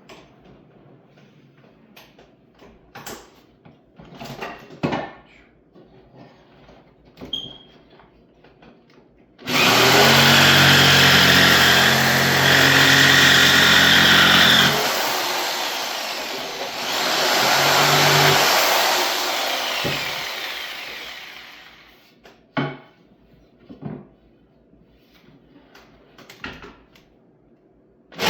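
Electric power saw cutting trim board: after a few light knocks of the wood being handled, the saw starts about ten seconds in and runs loudly for about twelve seconds, easing off briefly partway through, then winds down gradually, followed by more light knocks.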